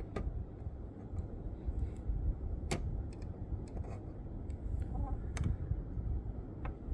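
Scattered light clicks and taps, about five over several seconds, from handling a diecast model car and its packaging, over a steady low rumble.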